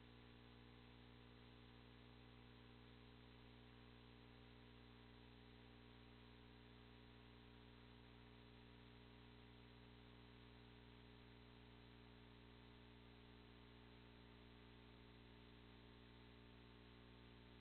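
Near silence: a faint, steady electrical hum with a low hiss, unchanging throughout.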